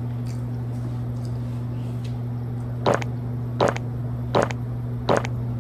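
Drinking soda through a plastic straw from a fountain cup: four short sucking gulps, evenly spaced about three-quarters of a second apart, beginning about halfway in. A steady low hum runs underneath throughout.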